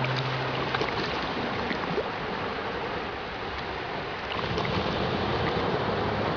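Steady wash of sea water and waves, with a few faint clicks through it. Soft background music fades out in the first half second and returns quietly in the second half.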